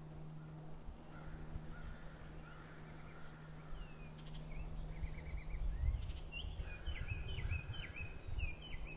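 Songbirds calling in woodland: scattered short chirps, then a quick run of repeated down-slurred notes in the last few seconds, over a steady low hum.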